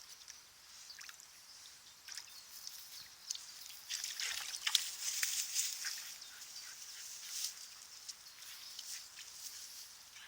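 Light splashing and sloshing of shallow river water as a French bulldog wades in, busiest around the middle.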